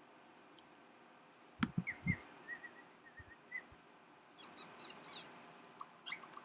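Pet cockatiel chirping and whistling: a run of short soft notes, then a quick series of sharp high chirps, with a few dull thumps near the start.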